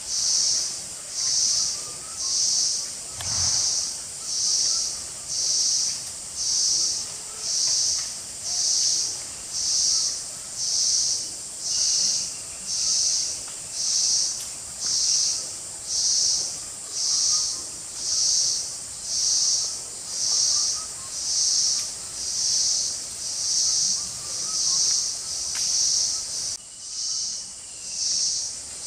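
Forest insect chorus: a high buzzing that swells and fades about once a second over a steady, even higher drone. A brief low thump about three seconds in.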